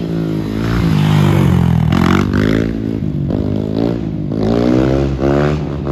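A Kayo K6 250 dirt bike's 250 cc four-stroke engine revving while ridden on a wheelie, its pitch climbing hard about a second in, then rising and dropping several times in quicker succession.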